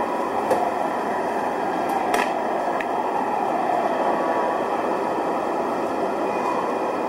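Steady city street noise, a dense even roar, with a faint tone that slowly falls and later rises again. A few sharp clicks come in the first three seconds.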